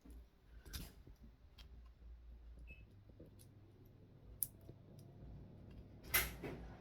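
Plastic Lego pieces clicking as they are handled and snapped together: light, scattered clicks about once a second, one sharper than the rest about four and a half seconds in, and a louder rustle about six seconds in.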